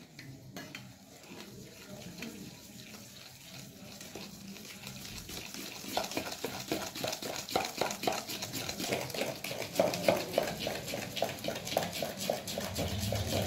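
A metal spoon beats curd, sugar and ghee in a stainless steel bowl, scraping softly at first. From about six seconds in it settles into brisk, rapid strokes at about five a second, the mixture being creamed. A low steady hum comes in near the end.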